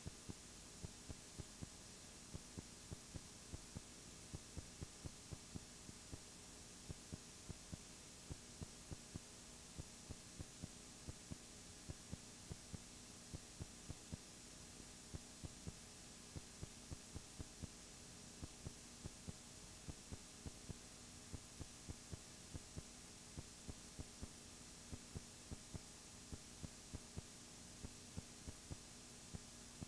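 Near silence: a low steady electrical hum with faint irregular clicks, two or three a second. No sound of the match itself can be heard.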